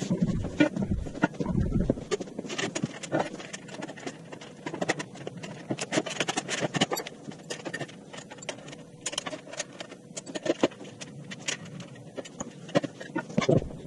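Sped-up workshop assembly sounds: a rapid, irregular clatter of clicks and knocks from parts and tools being handled, with the pitch and pace raised by the time-lapse speed-up.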